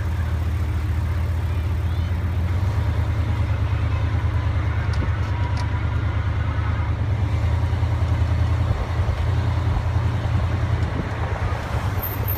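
Tow truck's engine running while driving, with tyre and road noise: a steady low rumble.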